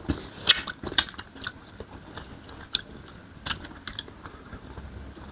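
Close-up eating sounds: chewing and biting, with irregular sharp wet clicks and smacks every second or so.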